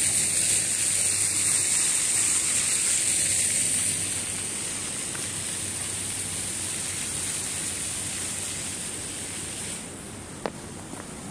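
Water from plaza fountain jets splashing: a steady hiss that grows fainter after a few seconds and again near the end. A single short tick sounds near the end.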